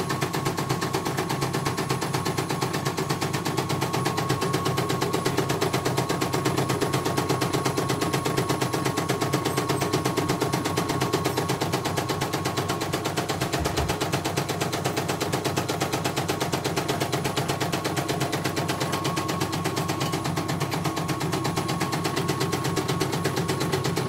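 CNY portable embroidery machine stitching a design, its needle going in a fast, steady rattle of stitches.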